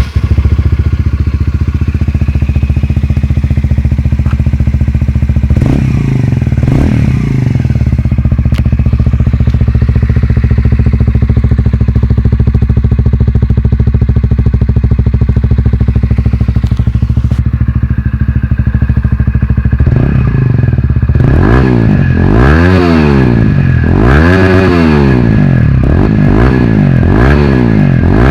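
2008 Honda CBR125R's single-cylinder four-stroke engine through a Scorpion exhaust muffler, idling steadily with a couple of quick blips of the throttle about six seconds in. From about twenty seconds in it is revved again and again, the pitch rising and falling about every two seconds.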